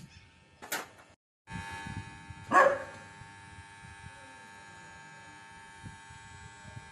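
A dog barks once, loudly, about two and a half seconds in, over a steady electrical hum.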